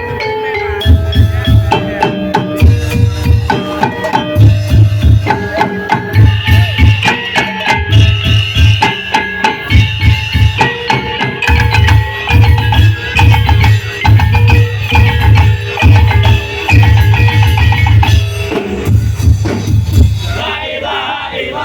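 Percussion ensemble playing: regular heavy drum beats under wood-block clicks and a melodic line.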